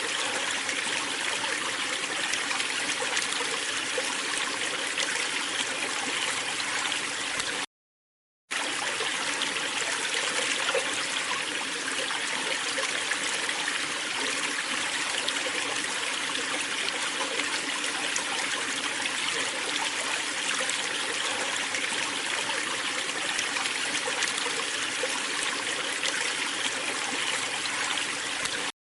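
Water of a waterfall rushing and splashing steadily. It cuts out to silence for under a second about eight seconds in, then comes back the same.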